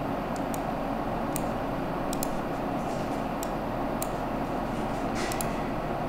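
Steady hiss of room noise with a low hum, and several faint, sharp computer mouse clicks scattered through it as points of a shape are moved and added.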